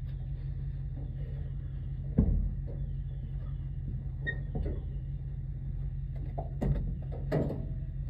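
Small engine running steadily with a low hum, with a few sharp knocks of work on wood on top of it: the loudest about two seconds in, and two more near the end.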